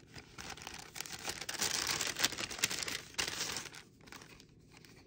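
Paper packaging rustling and crinkling as it is handled and pulled out of a box, loudest in the middle and dying away near the end.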